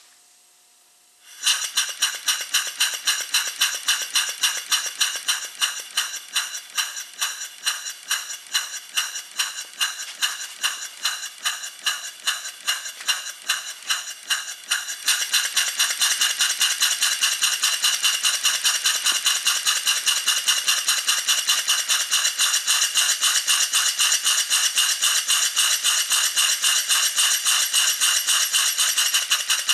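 Live steam model horizontal engine running, its exhaust giving sharp, hissing chuffs in an even beat, about two a second, that start suddenly about a second in; about halfway through the chuffs grow louder and quicker and then run on steadily. Its reworked cylinder runs like a single-acting piston.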